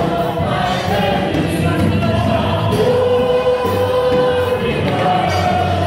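Congregation singing a worship song together, many voices holding long notes at a steady level.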